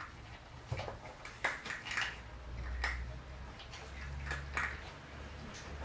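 Two puppies eating from a plastic food bowl: irregular small clicks and clatters of kibble and muzzles against the bowl, with a low steady rumble underneath from about two seconds in.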